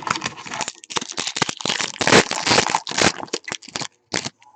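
Foil wrapper of a trading-card pack being torn open and crinkled by hand, a dense run of crackling and rustling that stops just before the end, with one last short crinkle.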